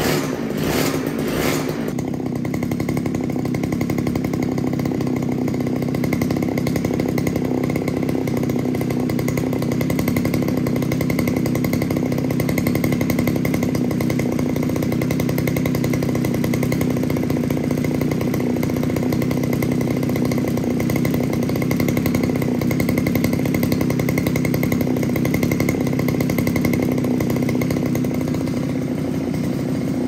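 StrikeMaster ice auger's two-stroke engine running while its carburetor mixture screw is turned in and out to lean or richen the fuel mix. It pulses unevenly for about the first two seconds, then settles into a steady run at a constant speed.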